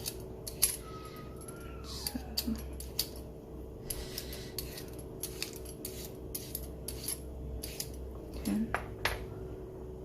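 Hand vegetable peeler scraping a potato in quick, irregular strokes, with a steady low hum underneath.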